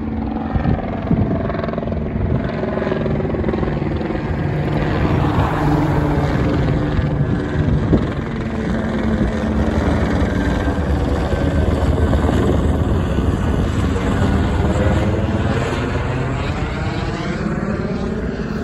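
Police helicopter flying low overhead, its rotor and turbine noise loud and continuous, with a slowly shifting sweep in the sound as it passes.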